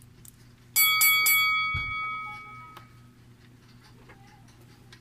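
Bell sound effect: three quick rings in a row about a second in, ringing out and fading over the next two seconds, over a faint steady hum.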